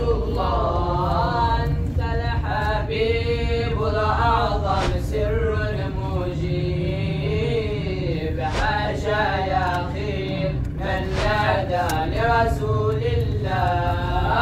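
Background music: an Arabic Islamic devotional song (nasheed) praising the Prophet, sung as a chant with drawn-out notes.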